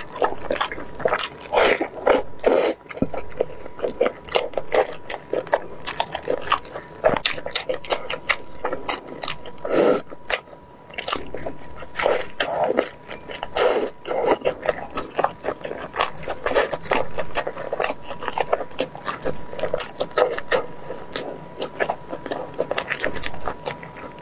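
Close-miked eating of braised pork knuckle: wet biting and chewing, with many quick smacks and clicks.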